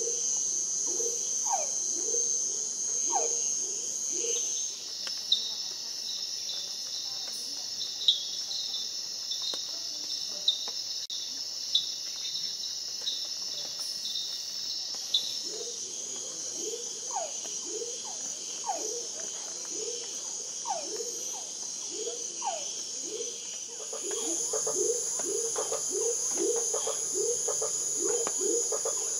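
Tropical rainforest night chorus: insects trilling steadily and high, over runs of short, falling call notes from frogs lower down. In the middle there are regular high ticks and a few sharp clicks, and near the end the chorus grows louder and denser.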